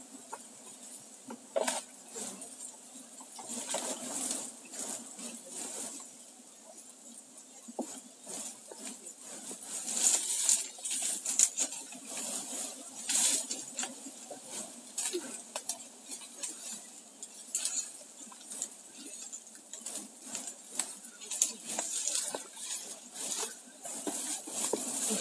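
Smoke torch crackling and clicking irregularly as it burns, in busier spells about ten seconds in and again near the end, over a faint steady low hum.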